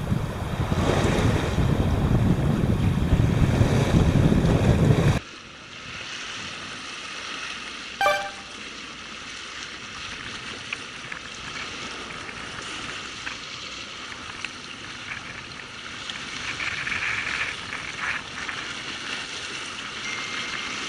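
Wind buffeting the microphone with a loud rumble, stopping abruptly about five seconds in. After that, sea waves wash quietly against shore rocks, with one short sharp click about eight seconds in.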